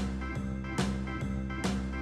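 Background music for a children's song: sustained instrument notes over a steady beat of about two and a half pulses a second.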